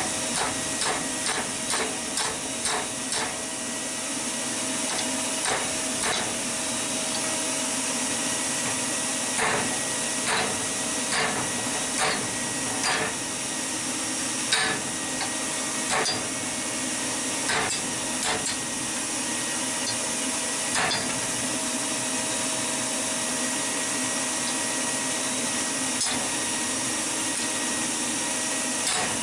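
Hammer blows on red-hot steel over an anvil as a salvaged lawnmower blade is forged straight. The blows come in a quick irregular run at first, then singly and in pairs. A steady hiss from the homemade forge runs underneath.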